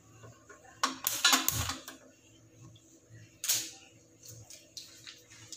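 Kitchen items being handled on a counter: a burst of clattering and rustling about a second in, then a single knock a couple of seconds later.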